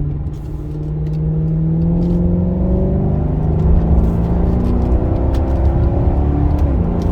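2009 Maserati Quattroporte Sport GTS's 4.7-litre V8 accelerating hard, its pitch climbing steadily for about six seconds, then dropping near the end as the gearbox shifts up.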